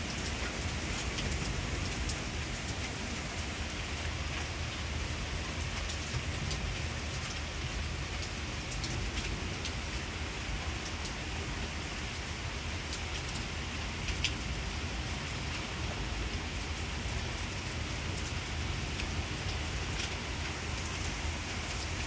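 Steady rain falling on a wet paved patio and lawn, with scattered sharper drop hits; one louder hit about fourteen seconds in.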